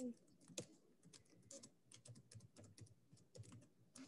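Faint computer keyboard typing: quick, irregular keystrokes, several a second.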